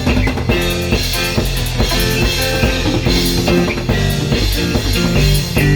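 Instrumental rock music with drum kit and guitar, an interlude between sung lines.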